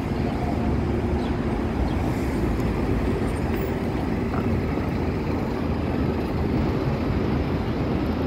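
City street traffic: a steady low rumble of idling and passing vehicle engines with a faint steady hum.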